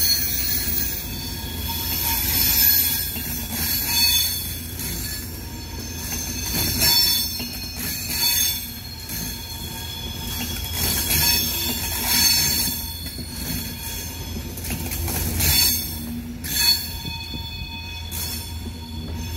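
HŽPP class 2044 diesel locomotive-hauled passenger train moving on the rails with a high-pitched steady squeal from its wheels. The squeal swells repeatedly every one to three seconds over the low rumble of the diesel engine and rolling stock.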